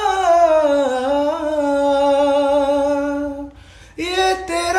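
A man singing unaccompanied. He holds one long wordless note that slides down over the first second and then stays steady. After a short break, a new, higher phrase begins near the end.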